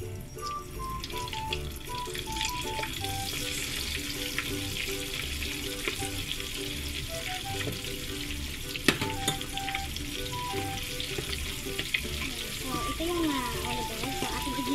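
Flour-coated shrimp deep-frying in a saucepan of hot oil: a steady sizzle and bubbling that builds up over the first few seconds as the shrimp go in. There is a single sharp knock about nine seconds in, and light background music with a simple melody and beat plays throughout.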